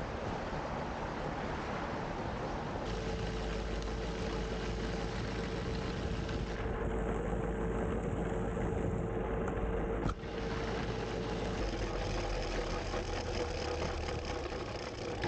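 Prototype battery-electric rail cart riding along old rails: a steady motor hum over the rumble of its wheels on the track. The sound changes abruptly about 3 and 10 seconds in.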